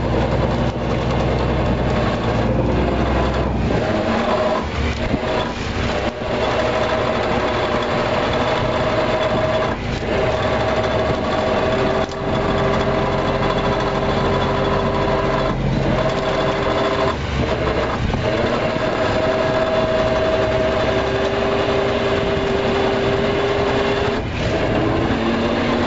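A fishing boat's engine and machinery running steadily. A deep hum is strongest in the first few seconds, then a steady whine comes in at about four seconds. A second, lower whine joins it at about twelve seconds, and both stop near the end.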